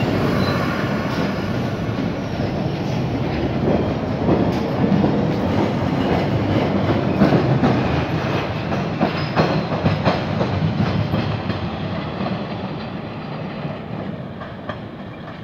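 MBTA Red Line subway train pulling away: a steady running rumble with the clickety-clack of wheels striking rail joints and switches, clicking most densely in the middle. It fades as the train draws away.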